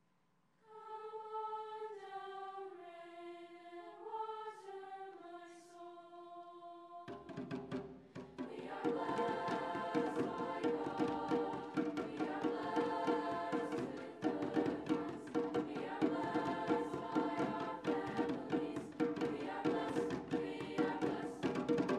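Treble choir singing, a cappella at first with a few clear held parts; about seven seconds in, hand drums and a fuller, louder choir come in together with a steady rhythmic beat.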